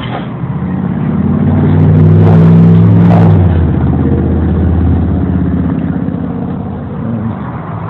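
A motor vehicle's engine passing close by. It grows louder, is loudest about two to three seconds in, then slowly fades.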